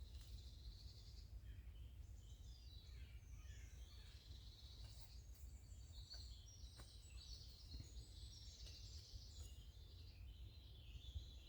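Faint birdsong from several small birds, chirping and twittering, over a steady low rumble, with a few faint clicks.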